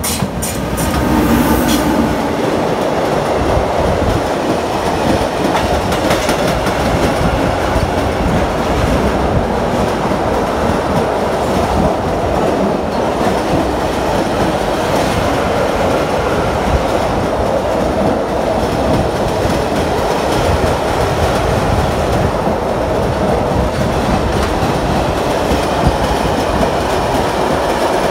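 A freight train of empty flat wagons, hauled by an FS E652 electric locomotive, passing close by. The locomotive goes by at the start, then a loud, steady rolling noise of steel wheels on the rails follows as the wagons pass.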